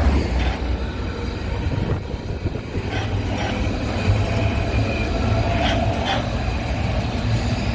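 The tail of an ICE high-speed train rushes past close by, its rumble fading over the first two seconds. A Berlin S-Bahn electric train then runs past on a farther track: a steady rumble and hum, with clicks in pairs as its wheels cross rail joints.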